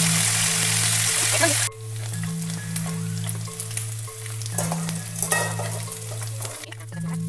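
Snapper pieces frying in hot oil, a dense sizzle with crackling and popping. The sizzle is loud at first, then drops abruptly to a quieter crackle about a second and a half in.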